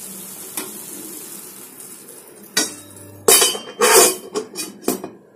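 Okra sabji sizzling faintly in a kadai, then a lid set on the pan about two and a half seconds in, clattering against the rim in several loud clanks.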